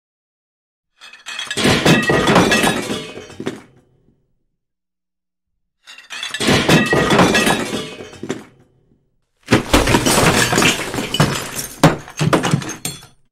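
Glass shattering three times, each a sudden crash followed by shards tinkling and clattering for about three seconds before dying away. The third break comes in several rapid waves of falling pieces.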